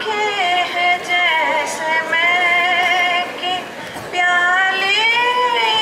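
A woman singing an old Hindi song unaccompanied into a microphone, in long held notes with slight vibrato and short breaks for breath between phrases.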